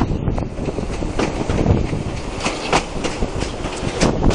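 Wheels of a steam train's passenger carriages rolling along the track, heard from an open carriage window: a steady rumble with sharp clacks over the rail joints, the loudest past the middle and just before the end.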